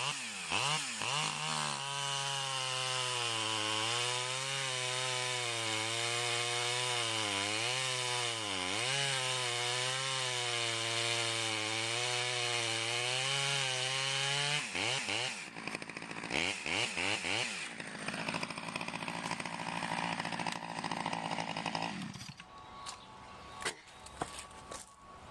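Stihl 011 AVT two-stroke chainsaw at full throttle making two short test cuts in wood. Its engine note sags and recovers as the chain loads up in the cut. After about fifteen seconds the throttle is released and the saw drops to a lower, weaker note, and near the end it goes quiet with a few knocks.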